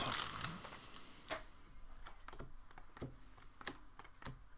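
Panini Prizm basketball cards being handled and flipped one behind another: faint scattered light clicks, about one or two a second, after a brief soft rustle of the foil pack at the start.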